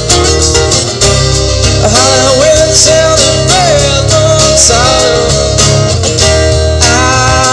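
Live rock band playing: strummed acoustic guitar over bass and drums, with a melodic line that bends and wavers in pitch coming in about two seconds in.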